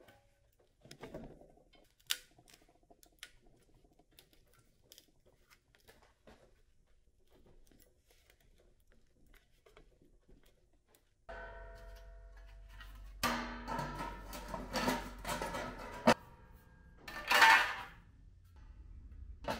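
Faint clicks and a soft knock from sheet steel being handled in a hand-operated bending brake. After about eleven seconds a steady hum starts suddenly, with loud, irregular clattering metal knocks and a sharp bang near the end.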